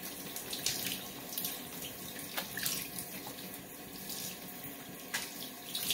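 Shower spray running steadily, water hissing and splashing in a tiled shower stall.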